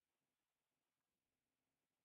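Near silence: digital silence with no audible sound.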